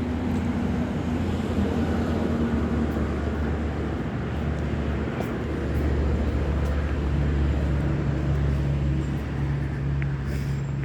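A motor or engine running with a steady low hum, a little stronger from about halfway through.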